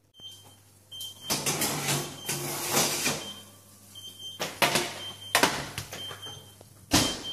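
Metal baking tray clattering and scraping as it is carried to an oven and slid in, with several loud clanks. Short high beeps come in every second or so, over a faint steady hum.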